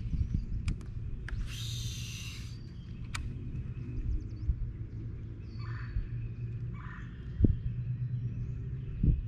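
Steady low rumble of wind on the microphone in an open boat, with scattered clicks and a couple of knocks near the end, and a brief hiss about two seconds in.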